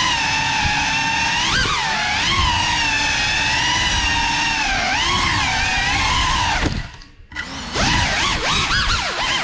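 GEPRC Cinelog35 cinewhoop drone's brushless motors and ducted propellers whining, the pitch rising and falling with the throttle. About seven seconds in the whine drops away almost to nothing for under a second, then spools back up.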